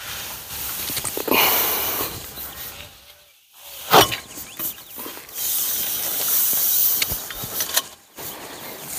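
Aluminium flagpole sections being pulled apart: metal scraping and grinding as the upper section slides off the joint, with a sharp clank about four seconds in and a longer stretch of hissing scrape near the end.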